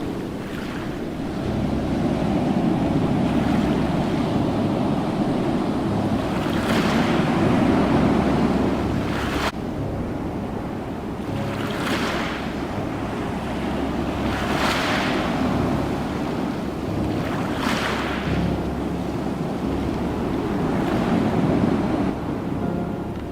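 Ocean surf: a steady low rumble of waves, with a hissing wash of breaking water surging up every three seconds or so.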